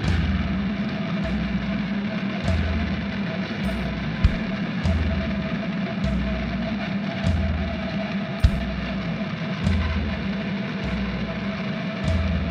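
Film soundtrack music: a deep bass note pulsing a little more than once a second under a steady droning tone, with sharp ticks at intervals.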